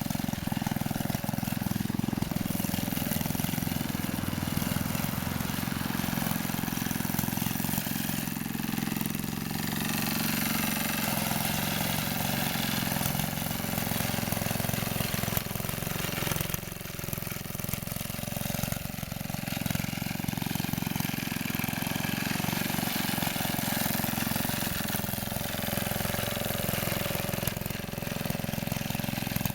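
1952 Savage Arms power lawn mower's small engine running steadily, with a brief dip in level a little past halfway.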